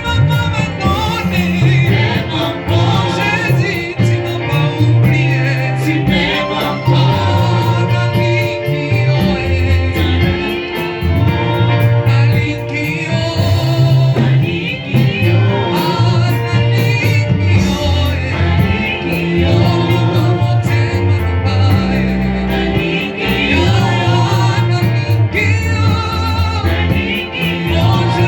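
Gospel worship song: singing over a band with a prominent bass line, the bass notes changing every second or two.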